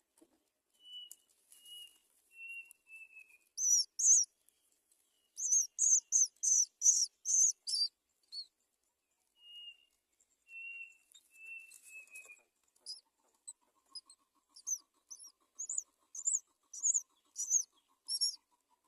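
Nestlings begging, giving quick runs of short, very high, shrill chirps that come in bursts. Between the runs, a separate bird gives four short falling notes, twice.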